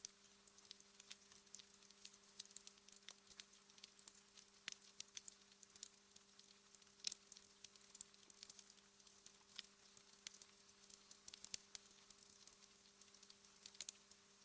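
Wood fire crackling softly in a fireplace: a steady scatter of small, irregular pops and snaps, with one sharper pop about halfway through.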